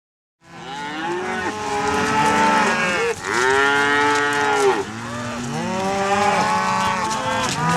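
A herd of cattle mooing, many animals calling at once, with long overlapping calls that rise and fall in pitch.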